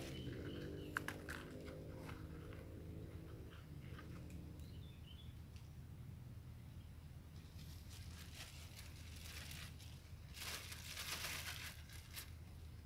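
A black plastic bag crinkling and rustling in the hands, in short bursts late on, with a few light clicks near the start. A faint low hum fades away over the first few seconds.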